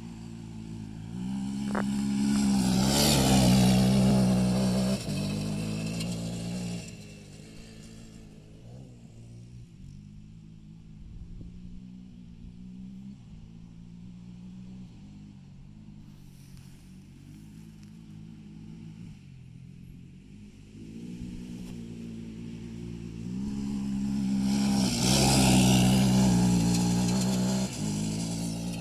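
Honda TRX300EX ATV's single-cylinder four-stroke engine revving as the quad rides past close by twice, a few seconds in and again near the end. Its pitch rises and falls with the throttle. In between it runs fainter as the quad rides farther off.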